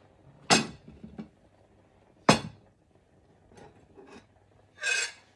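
A metal spoon striking cookware: two sharp clinks about half a second and two seconds in, a few lighter taps, then a brief scrape near the end.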